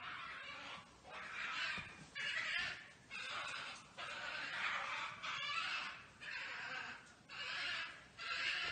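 European badgers fighting, giving harsh, rasping calls in repeated bursts of about a second each, roughly one a second.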